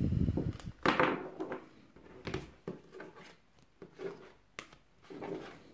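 Rigid plastic card holders clicking, sliding and tapping against each other and on a wooden desktop as a stack of cards is gathered up by hand. There is a low bump at the start, a louder clatter just before one second in, then scattered short clacks and rustles.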